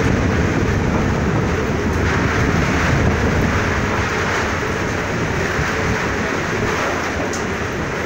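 Strong wind and heavy rain of a cyclone: a steady rushing noise with a deep rumble underneath.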